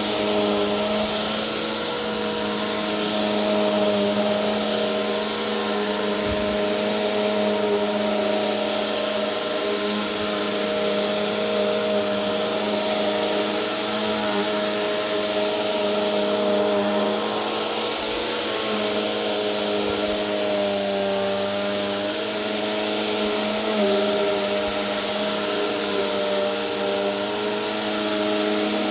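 Bissell Powerforce Helix upright bagless vacuum cleaner running while vacuuming a rug. The motor hum is steady, its pitch wavering slightly, with a high whine above it.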